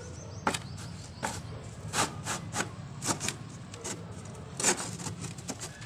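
Thin wooden board knocking and scraping against the slats of a wooden fruit crate as it is worked into place as a middle divider: a string of irregular sharp wooden knocks over a steady low hum.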